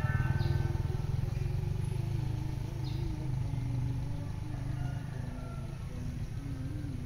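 A motor vehicle's engine rumbling, slowly fading away.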